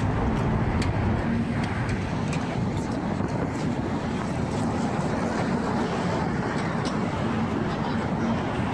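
Steady city street noise: a low rumble of traffic, with wind buffeting the microphone.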